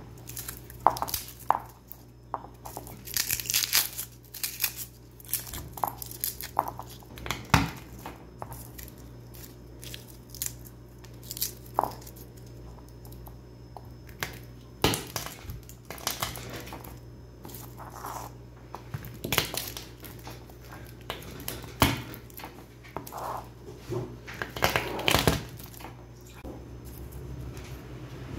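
Dry, papery garlic skins crackling and tearing as cloves are pulled from the head and peeled by hand, with a few sharper knocks as cloves are pressed under a knife blade on a plastic cutting board. A faint steady hum lies underneath.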